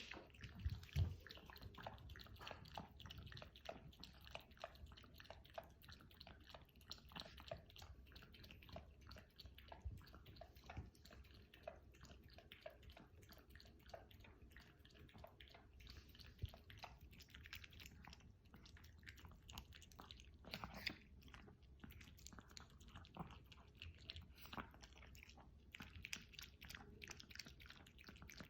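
Chihuahua chewing and smacking its food in a fast run of small, wet clicks. There is a louder low thump about a second in.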